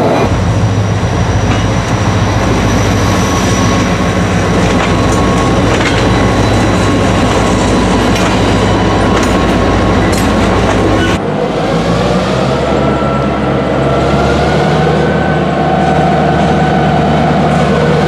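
A freight train passes close by: the EMD diesel locomotive's engine runs steadily under load while wheels click over rail joints and the cars roll past. About eleven seconds in, the sound cuts to another EMD locomotive whose engine rises slowly in pitch as it throttles up.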